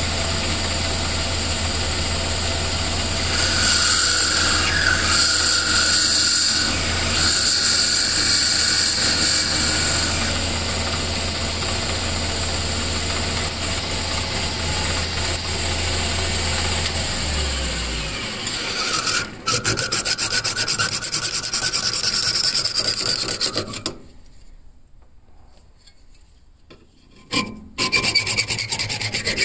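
Metal lathe running, turning down a pool cue ferrule blank with a cutting tool. Past the middle the motor hum stops and a hacksaw is drawn back and forth through the ferrule stock in quick strokes, with a brief pause before the last strokes.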